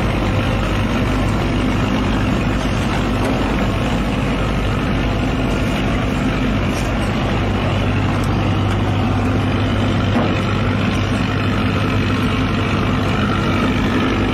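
An engine idling steadily: a constant low drone that does not change in pitch.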